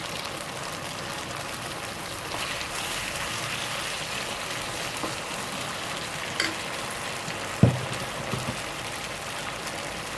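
Pork liver slices sizzling steadily as they fry in margarine in a wok, just seasoned with soy sauce. A sharp click comes about six seconds in, then a louder knock and a smaller one.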